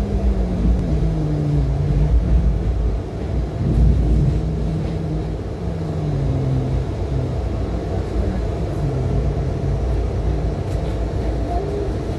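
A passenger train in motion heard from inside the coach: a steady low rumble of wheels running on the track.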